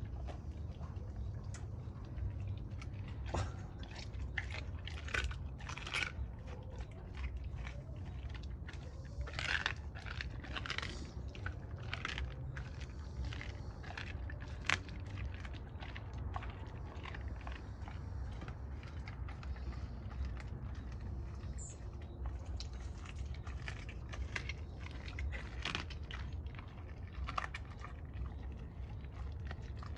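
A Doberman chewing a raw squirrel, bone and meat crunching in irregular bites, with a steady low hum underneath.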